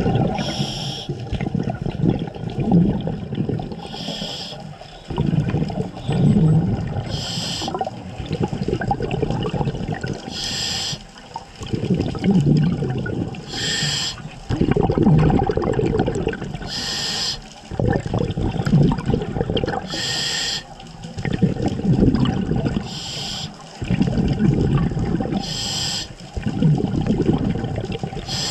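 Scuba diver breathing through a demand regulator: a short hiss of each inhalation about every three seconds, each followed by a longer bubbling of exhaled air.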